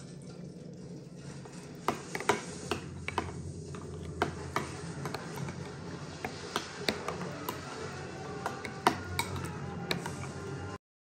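Metal spoon stirring couscous and milk in a porcelain bowl, with irregular clicks and scrapes against the china. It stops abruptly shortly before the end.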